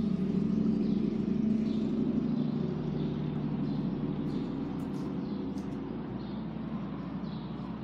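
Low, steady rumble of a motor vehicle or road traffic, loudest in the first couple of seconds and slowly easing off.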